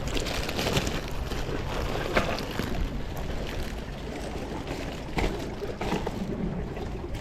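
Wind buffeting the microphone, with water moving and a few short knocks and rustles.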